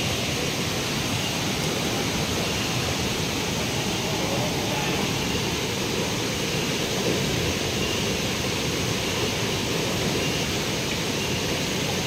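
Steady rush of flowing water in a shallow stream fed by a waterfall.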